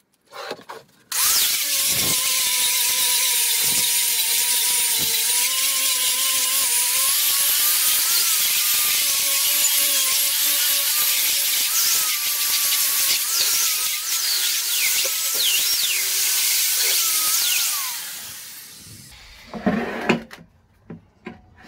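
Handheld electric angle grinder grinding rust off a steel bench vise. Its whine dips and rises as it is pressed into the metal and eased off. It starts about a second in and winds down near the end, followed by a few knocks.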